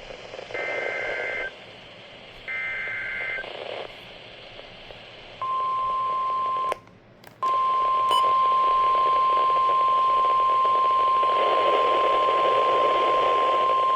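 NOAA Weather Radio emergency alert: the last two of the three roughly one-second bursts of the SAME digital header code, a buzzy two-tone data sound, then the steady 1050 Hz weather radio warning alarm tone starting about five seconds in, cutting out briefly with a click about seven seconds in, then holding on. The header and tone mark the start of a warning broadcast.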